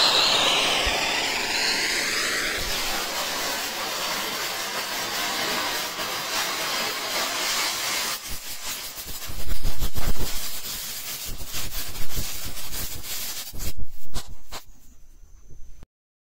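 Handheld gun-shaped Zap Gun fountain firework spraying sparks with a steady hiss. From about eight seconds in the hiss thins and the crackle effect takes over: rapid crackling pops, loudest around ten seconds, tapering off before the sound cuts off suddenly near the end.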